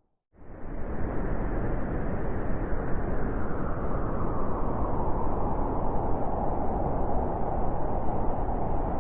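Winter wind blowing steadily, an even rushing noise with no tones in it. It drops out to silence at the very start and swells back in within about a second.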